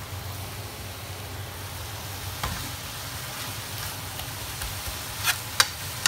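Spring-roll filling of minced pork, bean sprouts and carrot sizzling steadily in a hot wok as it is stir-fried with a spoon and tongs. A few sharp clinks of the utensils against the pan, the loudest near the end.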